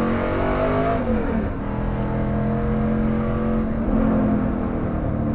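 Car engine revving as it accelerates. The pitch climbs, drops about a second in as it shifts gear, holds steady, then climbs again near the end.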